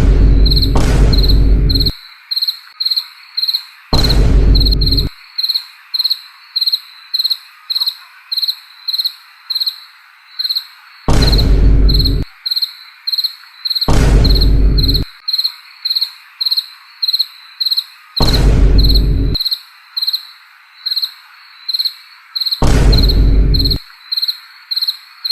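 Cricket chirping sound effect, an even high chirp about two to three times a second, used as an awkward-silence gag. Six times a loud blast of noise about a second long cuts across it, from the lowest to the highest pitches.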